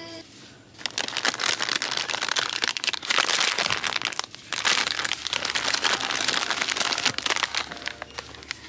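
Plastic wrappers of Ottogi Yeul Ramen instant-noodle packs crinkling as the packs are pulled off a shelf and handled. The crinkling starts about a second in and goes on with a few short breaks.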